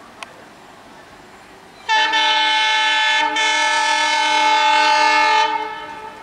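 Indian Railways diesel locomotive's horn sounding one long, loud blast of about three and a half seconds, starting about two seconds in, wavering briefly partway through and trailing off near the end.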